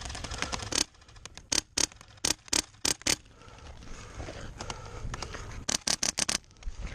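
Airsoft gunfire: a rapid stream of clicks from full-auto fire in the first second, then two clusters of sharp cracks, from about a second and a half in to three seconds and again near the end.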